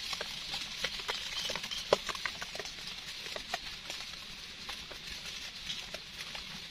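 Light irregular clicks and crackles, several a second with a sharper one about two seconds in, from hands working in damp leaf litter and a small knife scraping soil off the stem of a freshly picked wild mushroom, over a steady high hiss.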